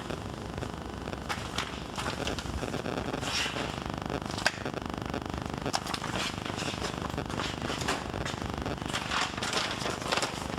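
Cardboard boxes of consumer firework cakes knocking and clattering as they are loaded into a metal shopping cart. The knocks are irregular and sharp, with one stronger knock near the middle.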